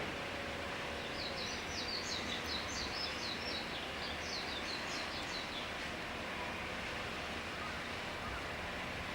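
Common kingfisher giving a rapid run of short, high-pitched chirping calls, then a shorter run, over a steady background rush.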